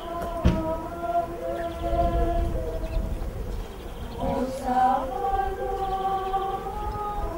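Voices singing a slow liturgical chant in long held notes. There is a sharp knock about half a second in, and a low rumble underneath.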